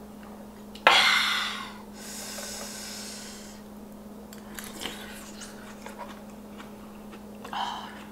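A woman breathes out sharply and loudly about a second in, followed by a softer, longer breath out; then small spoon clicks and chewing sounds as she eats, and a short breathy puff near the end.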